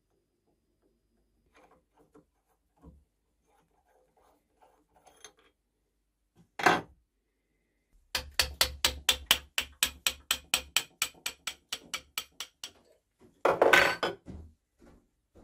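Steel lathe slide parts and a brass spindle nut being handled and fitted by hand: scattered light clicks, a sharp knock, then a rapid run of clicks about five a second, and a louder clatter near the end.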